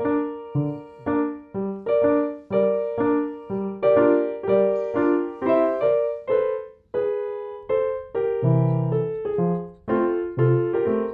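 Background music: a light keyboard tune of notes that ring and die away, about two a second.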